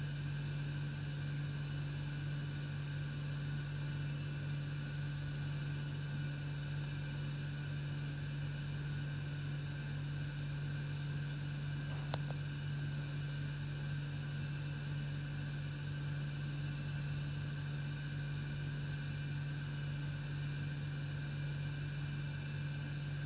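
Steady low mechanical hum, unchanging throughout, with one short click about halfway through. The tiger's eating is barely heard over it.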